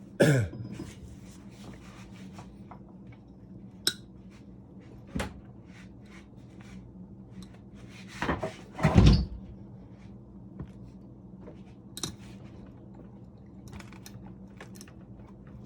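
Scattered knocks and metallic clicks from a bench vise being worked with a small knife clamped in it, with one heavy thump about nine seconds in, over a steady low hum.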